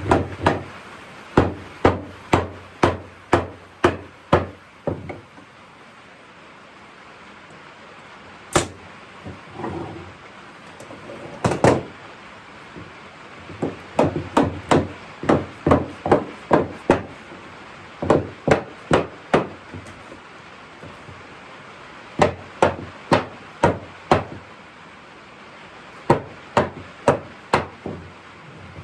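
Hammer blows on wood come in runs of several sharp strikes, about two a second, with pauses between the runs.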